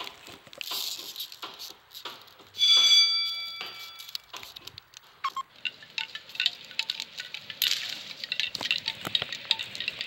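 Plastic DVD case being handled, giving a stream of small clicks and taps. About three seconds in, a single bright chime rings out and fades over a second or so; it is the loudest thing.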